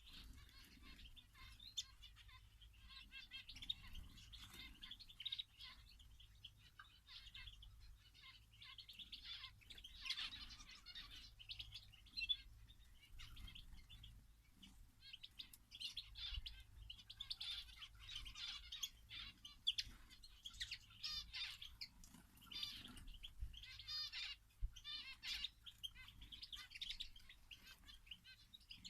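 Small songbirds in an aviary chirping and calling, many short chirps overlapping, with a few quick trills about three-quarters of the way in.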